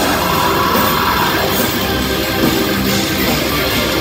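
Heavy metal band playing live, loud and continuous, with electric guitars to the fore.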